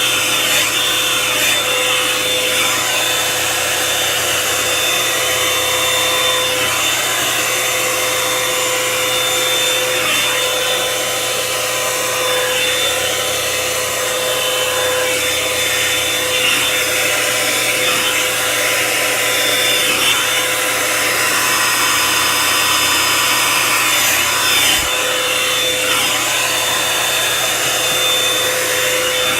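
Revlon One-Step hair dryer brush running steadily on its high setting, blowing with a steady motor whine, while its bristles rub through wet hair as it is drawn along.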